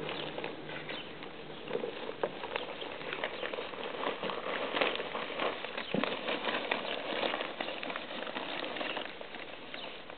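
Paper crackling and rustling as several puppies tug and tear at it, a dense, steady run of small crackles.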